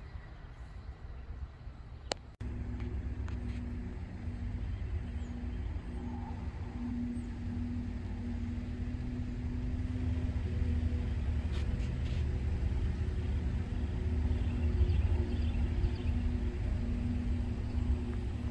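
Diesel freight locomotive engines running with a steady deep drone and a held hum, growing slowly louder as they approach. The drone starts suddenly about two seconds in, after a faint background.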